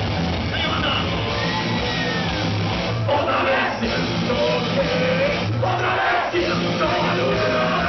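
Live rock band playing: distorted electric guitars, bass and drums, with a singer shouting and singing over them.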